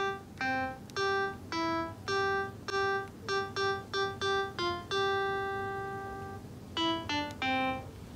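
Background music: a light melody of short, separate notes, with one note held longer about five seconds in.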